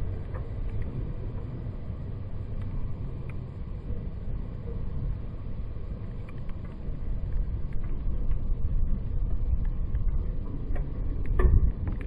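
Steady low rumble under an even hiss of rain at a railway level crossing, with the warning bell silent while the barrier arms lift. A few louder low thumps come near the end.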